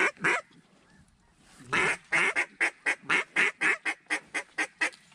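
A hand-blown waterfowl call sounding quick runs of short, evenly spaced notes, about four a second. A brief run comes right at the start, and a longer run of about a dozen notes begins about two seconds in and grows fainter toward its end.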